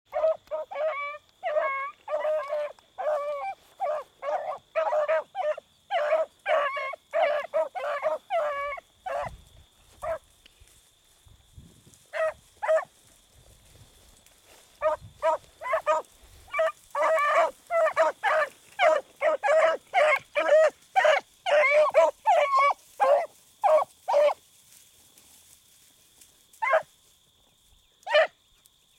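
Beagles baying as they run a rabbit's track, their cries coming thick and fast for the first nine seconds or so, thinning out, coming thick again, then dwindling to two single cries near the end.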